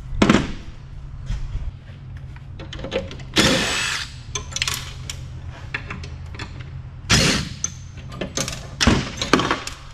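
DeWalt cordless driver run in three short bursts on fasteners in a metal power unit, the longest about three seconds in, with clinks and knocks of metal parts being handled in between.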